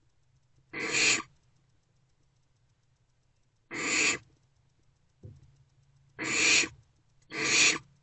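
Barn owlets hissing four times, each a harsh, breathy hiss of about half a second, the wheezy 'snoring' begging call of barn owl nestlings. A faint short knock comes between the third and the second-last hiss.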